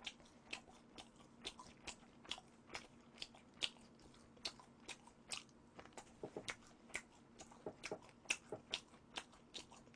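Faint close-up chewing of spicy sauced fried chicken: soft crunches and wet mouth clicks, irregular, about two or three a second.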